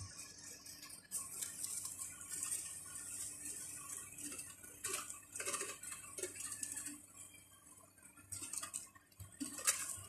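Hamsters scurrying through wood-shaving bedding: dry rustling and scratching with small clicks, with louder scratchy bursts around the middle and near the end.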